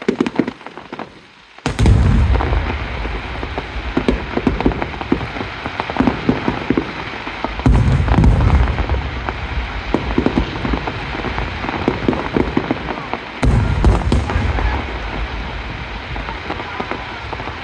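Aerial fireworks shells bursting overhead: three deep booms, about six seconds apart, each followed by several seconds of dense crackling.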